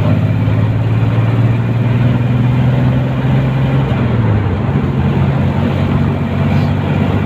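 Engine of the vehicle being ridden in, running steadily at road speed under loud wind and road noise. The engine note shifts slightly about four seconds in.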